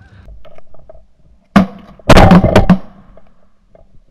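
Shotguns firing at geese: one shot about a second and a half in, then a quick volley of several overlapping shots just after two seconds.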